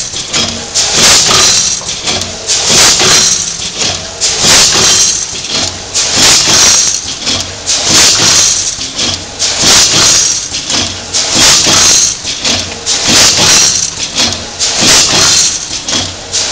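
Vertical form-fill-seal packing machine running its bagging cycle while it makes gusseted bags. A loud burst of hissing noise with clatter comes about every second and a half to two seconds.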